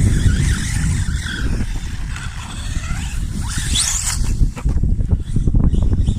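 Electric RC car motor whining as it is driven, rising sharply in pitch about three and a half seconds in as the car accelerates, with tyres skidding, over a constant low rumble.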